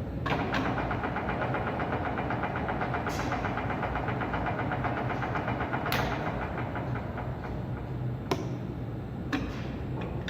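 Webo Varia 25 pillar drill running: a steady motor hum with a fast, even gear chatter over roughly the first six seconds, and a few sharp clicks.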